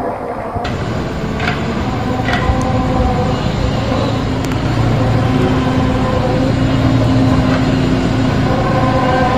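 A steady low, droning, horn-like hum with several held tones over a rumble: the so-called sky-quake or 'sky trumpet' sound heard in phone videos, whose cause is unknown.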